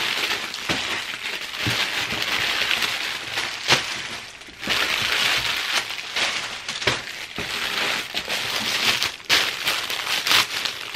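Clear plastic packaging bags crinkling and rustling as they are handled and lifted out of a cardboard box, with a few sharp clicks and knocks among them.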